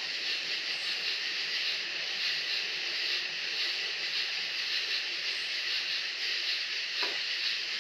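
Steady hiss of R-134a refrigerant flowing from an upturned can through the charging hose and gauge manifold into a window air conditioner, charged as liquid.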